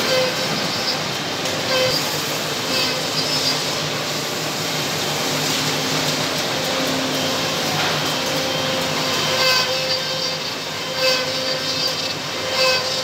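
Three-head CNC mortising machine running, its spindle motors giving a steady mechanical noise. A higher-pitched whine rises and fades every second or two as the cutters work the wood.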